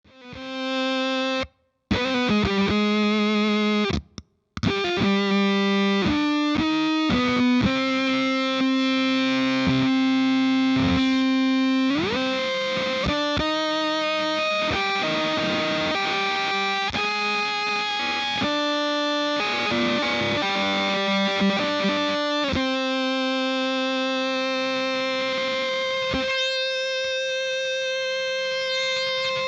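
Electric guitar through a Rainger FX Dr. Freakenstein fuzz pedal and a Marshall Vintage Modern amp, playing a heavily distorted fuzz riff. It stops briefly twice in the first few seconds, slides up in pitch about twelve seconds in, and ends on a long held note.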